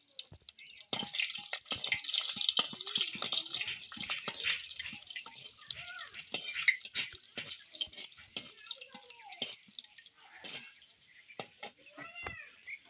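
Bay leaves, whole garam masala and dried red chillies sizzling and crackling in hot mustard-free cooking oil in a clay kadai over a wood fire, the tempering (phoron) frying. The sizzle thins out after about ten seconds.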